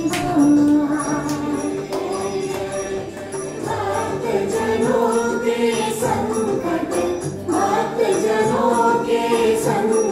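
Hindu devotional aarti sung by several voices, with bright jingling percussion such as a hand bell or tambourine keeping time.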